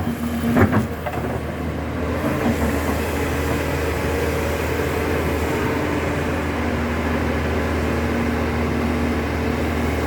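Backhoe's diesel engine running steadily while it digs, a low drone with a brief sharp knock about half a second in.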